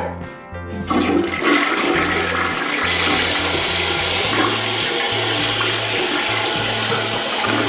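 Toilet flushing: a click of the flush handle, then a rush of water about a second in that swells and keeps running steadily.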